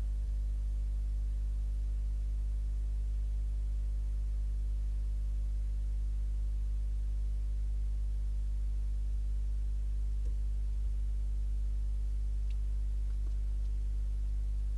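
Steady electrical mains hum, a low 50 Hz drone with a ladder of overtones. A few faint ticks come near the end.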